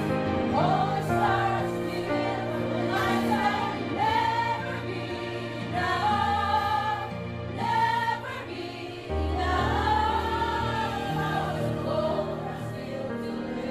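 A song with singing over a steady instrumental accompaniment: held, wavering sung notes above changing bass notes.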